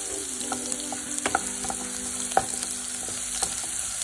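Chopped ginger and garlic sizzling in hot oil in a frying pan over a high flame, stirred with a spatula that taps against the pan several times. The aromatics are being fried until their raw smell cooks off.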